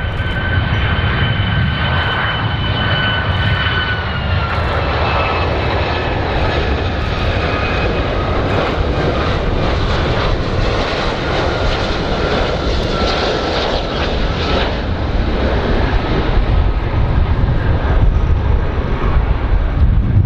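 Airplane engines running with a loud, steady roar and a high whine that drops slightly in pitch about four seconds in.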